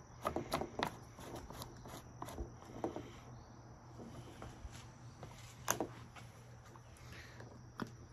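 Scattered faint clicks and taps of hands working the plastic fuel cap and tank of a string trimmer, with a sharper click nearly six seconds in and another near the end, over a faint steady hum.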